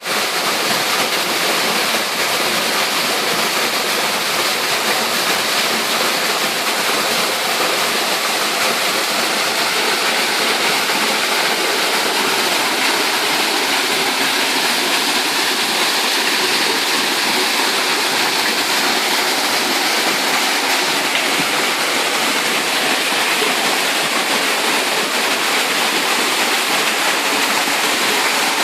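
Waterfall: a steady rush of water falling and splashing, hissy and even throughout.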